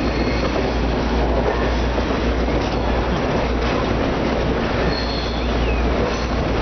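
Skunk Train passenger train rolling along the track, heard from an open observation car: a steady rumble of steel wheels on the rails, with a faint high wheel squeal about five seconds in.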